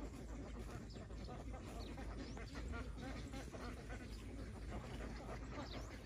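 A large flock of domestic ducks quacking, with many overlapping calls running together into a continuous chatter.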